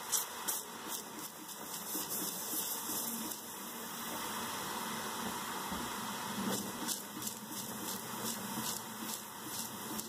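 Steady hiss of argon-CO2 gas escaping from a pinhole leak in a refrigerator's copper refrigerant line, with the system pressurized to about 85 PSI. A few light clicks sound over the hiss.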